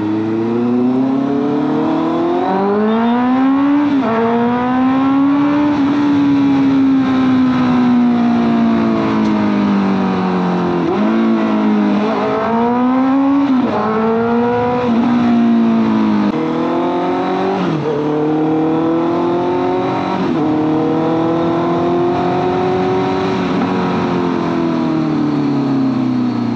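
Honda CBR650F's inline-four engine on the move, its pitch climbing and falling with the throttle, with several sudden jumps in pitch at gear changes, then a long smooth rise and fall while cruising.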